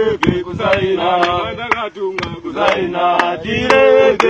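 A group of men chanting together in rhythmic phrases, with sharp cracks in time with it, about two a second.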